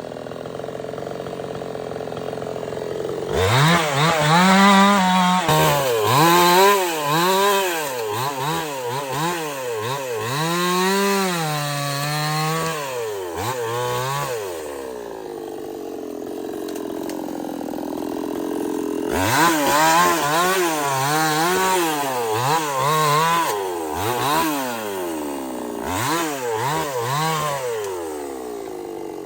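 Stihl 070 two-stroke chainsaw cutting into teak, its engine pitch rising and falling over and over as it loads up in the cut. It eases back to idle in the middle, then cuts again from about 19 seconds in and drops back to idle near the end.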